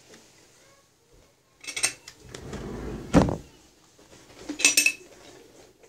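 Someone rummaging in a chest of drawers: a drawer slides and knocks, and small objects rattle and clink inside it. There is a clatter about two seconds in, a scrape ending in a sharp knock just after three seconds, and another clinking clatter near five seconds.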